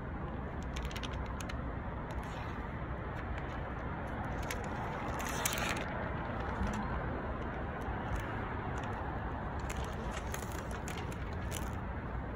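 Scattered light scrapes and clicks of window tint film being tucked and smoothed into the edge of a car door window, one louder scrape about five and a half seconds in, over a steady background rumble.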